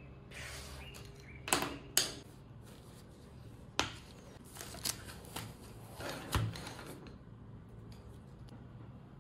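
Hands handling a spiral-bound notebook and pens on a wooden table: a string of sharp clicks and taps as the notebook's plastic snap tab is unfastened, the cover is opened and the pens are set down. The loudest clicks come about one and a half and two seconds in, with only faint rustling after about seven seconds.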